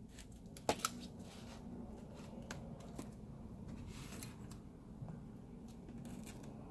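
Small handling noises of tools and parts on a workbench: scattered light clicks and short scrapes, with two sharp clicks in quick succession just under a second in.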